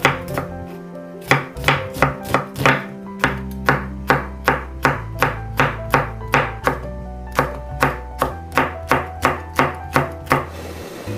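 Chef's knife chopping chili peppers and onion on a bamboo cutting board, a steady run of sharp knocks about two or three a second that stops just before the end, over background music with sustained bass notes.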